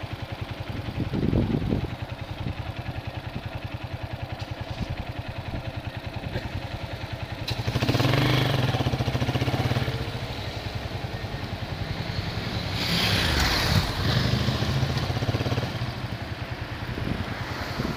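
A vehicle engine running steadily with a fast, even firing pulse and a hiss of wind over it. It grows louder twice, around eight and thirteen seconds in.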